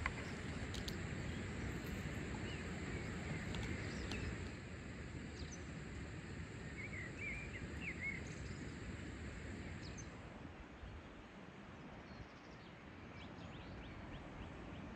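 Outdoor rural ambience: steady low background noise, growing quieter in the second half, with a few short bird chirps scattered through the first half.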